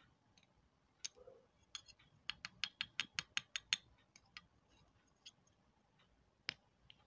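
Pieces of edible clay snapping and crumbling between the fingers: a fast run of sharp, crisp cracks, about six a second, in the middle, then a few scattered snaps and one louder crack near the end. The crisp snapping is the sign of brittle, crunchy clay.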